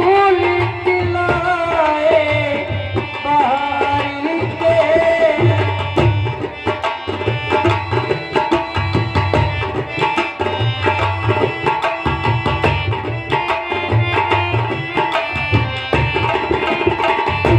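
Instrumental interlude of Indian folk devotional music: hand drums keep a steady repeating beat while a melodic instrument plays, with gliding, ornamented phrases in the first several seconds giving way to steady held chords.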